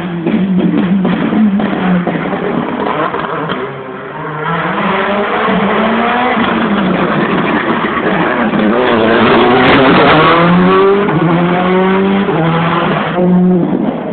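Rally car engine revving hard, its pitch rising and falling with gear changes and braking as the car comes through a hairpin. It is loudest about ten seconds in as the car passes, then pulls away.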